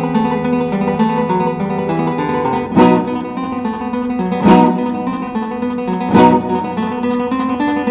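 Acoustic guitar music: picked notes, with a loud full strum three times, about every second and a half.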